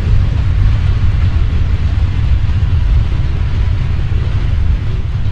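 FPV drone in fast flight heard through its onboard camera: wind and propeller wash buffeting the microphone as a loud, steady, fluttering low rumble with a hiss above it.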